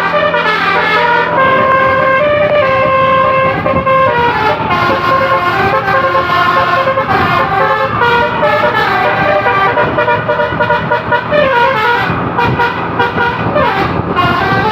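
Basuri telolet horn, a multi-trumpet electric horn of the kind fitted to Indonesian buses, playing a tune as a run of stepped, held notes. Near the end it slides up and down in pitch like a siren.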